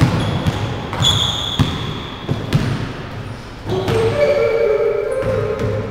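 Basketball dribbled on a hardwood gym floor, about two bounces a second, with short sneaker squeaks. A drawn-out shout is held over the last two seconds.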